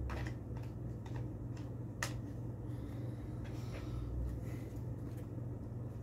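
Light, scattered clicks and taps of a 2.5-inch SSD and a plastic laptop drive caddy being handled and fitted together, the sharpest click about two seconds in. A steady low hum runs underneath.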